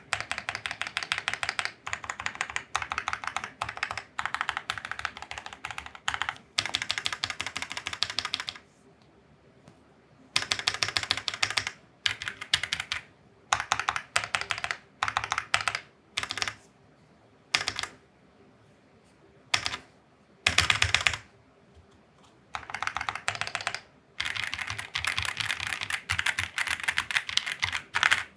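Typing on a Keychron Q3 mechanical keyboard fitted with test keycaps: fast runs of key clacks lasting a few seconds each, broken by short pauses.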